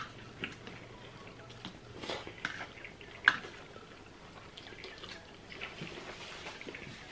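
Close-up eating sounds: wet chewing and mouth clicks, with a few sharp taps of plastic forks against glass bowls, the sharpest right at the start and about three seconds in.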